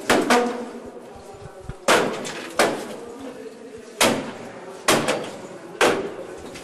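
Wooden apartment door being struck hard again and again with a hand tool to force it open: about eight sharp bangs at uneven intervals, some in quick pairs, each ringing briefly.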